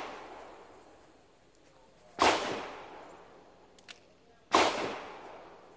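Smith & Wesson Governor revolver firing .410 shotshells: two sharp shots about two and a quarter seconds apart, each trailing off in a long echo. The tail of a shot just before fades at the start.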